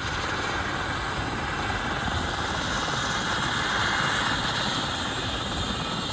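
Helicopter running, a steady loud wash of rotor and turbine noise with a fast chop low down.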